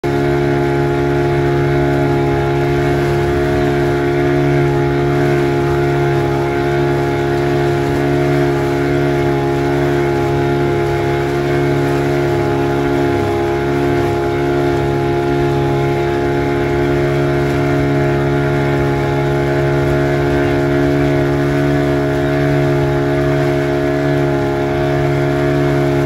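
Motorboat engine running at a steady speed under way, a constant drone whose pitch does not change.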